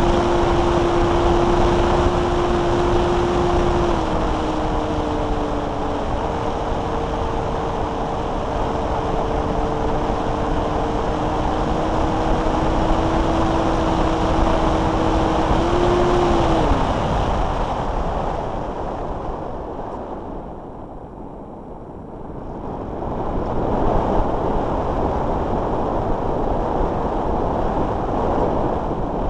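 Air rushing over an onboard keychain camera on a Multiplex Blizzard electric RC hotliner, with the electric motor's steady whine stepping down in pitch twice. About sixteen seconds in the whine rises briefly, then falls away as the motor is throttled off, leaving only wind noise, which fades for a couple of seconds and then builds again.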